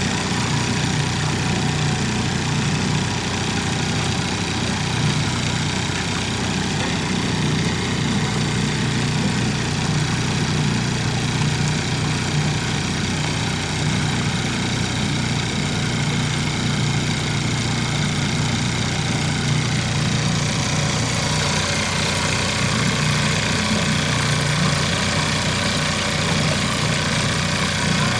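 Boat motor running steadily with an even low hum, while the boat moves across the lake. A higher hiss grows louder about two-thirds of the way through.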